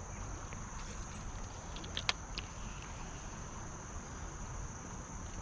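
Insects droning steadily in one high, even pitch over a low outdoor hiss, with a couple of sharp clicks about two seconds in.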